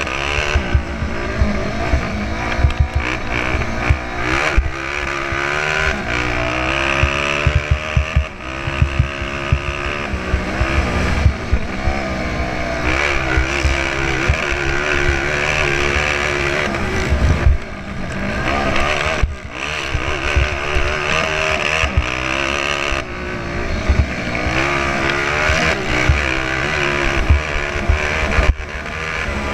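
Honda CRF450R's single-cylinder four-stroke engine at race pace, revving up and falling back again and again as the rider works the throttle and gears over rough ground, with wind rumble on the bike-mounted microphone. The engine note drops out briefly twice about two-thirds of the way through.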